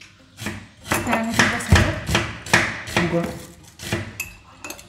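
Broad-bladed kitchen knife chopping on a cutting board: a run of sharp, irregularly spaced chops, about a dozen in all.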